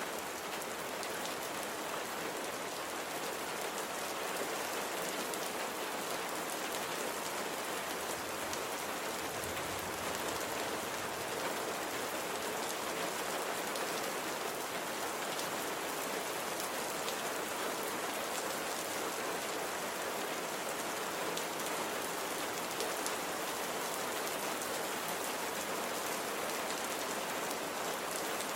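Steady rain falling: an even, continuous hiss of drops with no let-up.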